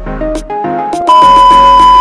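Background music with plucked notes, then about a second in a loud, steady high test-tone beep, the tone that goes with a TV colour-bar test pattern. The beep holds for about a second and cuts off sharply.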